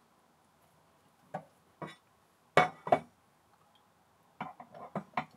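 Steel round-bar bed rails and saddle of an Emco Unimat SL lathe knocking and clinking against the metal bed casting as they are set in place. Two light knocks come a second or so in, then two loud ones close together about halfway, then a quick run of smaller clinks near the end.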